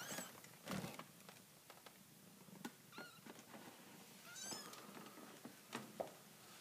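A newborn kitten mewing in thin, high-pitched cries: three short mews, one at the start rising in pitch, one about three seconds in, and one about four and a half seconds in. A soft thump comes just under a second in and a sharp click near the end.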